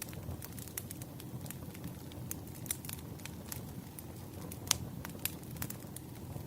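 Crackling wood fire: irregular sharp pops and snaps over a steady low rumble, with one louder pop near the middle.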